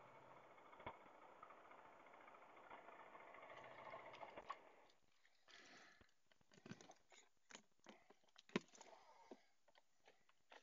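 Footsteps crunching on gravel, then a run of sharp clicks and clacks as a key turns in the lock and the latch and lid of a motorcycle's hard-shell top box are opened. The loudest is a single clack about eight and a half seconds in.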